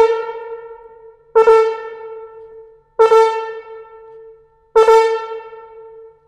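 Solo French horn: a held note fades away at the start, then the same note is played three times, about one and a half seconds apart, each with a sharp attack that dies away slowly.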